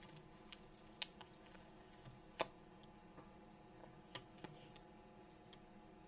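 A few sharp, light clicks and taps over a faint, steady background, the two loudest about one second and two and a half seconds in, with a quick pair of smaller ones near four seconds.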